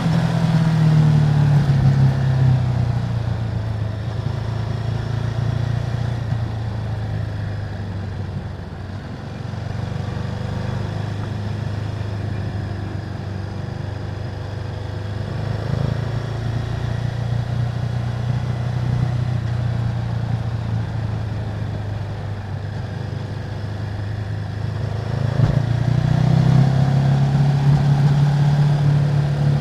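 Ducati Multistrada 950's 937 cc Testastretta V-twin running through its stock exhaust with a steady note. The pitch settles lower after the first couple of seconds and rises again about four seconds before the end.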